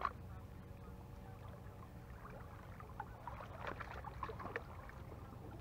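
Small waves lapping at the rocks of a seawall over a low steady rumble. There is a brief click right at the start and a cluster of faint splashes about three to four and a half seconds in.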